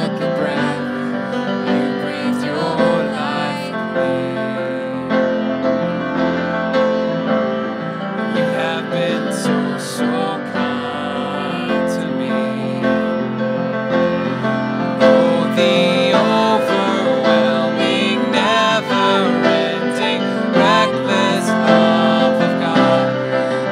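Grand piano and violin playing a slow worship song, with singing in places.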